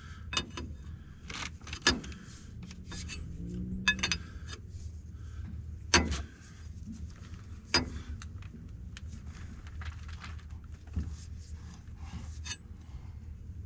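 Scattered metallic clicks and clinks of a wrench working on an excavator's hydraulic hose fittings, with a few sharper knocks standing out, over a faint low hum.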